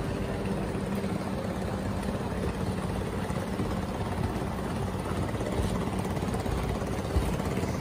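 Steady low engine hum from the boat, with a constant hiss of wind and rain over the water.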